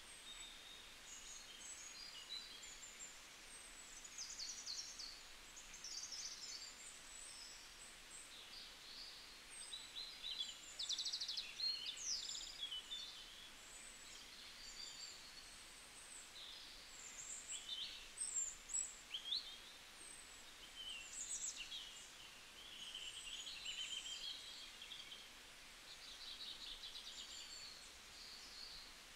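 Birdsong: several small birds chirping and trilling in short high calls, one after another, over a faint steady hiss.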